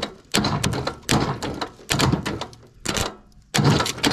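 Several heavy clunks, roughly one a second, each trailing off, as the starter is tried on an old abandoned farm tractor that turns out to be left in gear.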